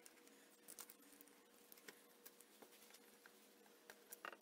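Near silence, with faint scattered ticks and crinkles of adhesive sticker backing paper being peeled off by hand.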